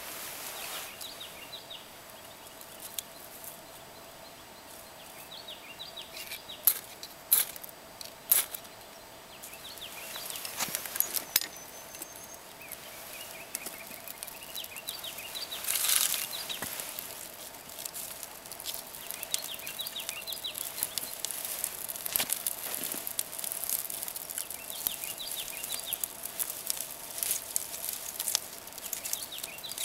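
Dry black spruce twig tips and kindling snapping, rustling and crackling as a small fire is lit and fed. There are three sharp snaps about seven to eight seconds in, and the crackle grows denser through the second half. Birds chirp faintly in the background.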